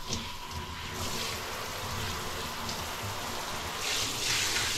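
Shower water spraying steadily onto a dog and the shower floor during a dog bath; the spray gets louder about four seconds in.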